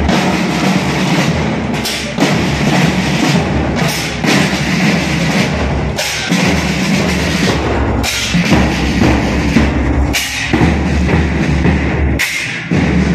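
Marching band's side drums and bass drums beating a march rhythm. The sound jumps abruptly every couple of seconds where clips are cut together.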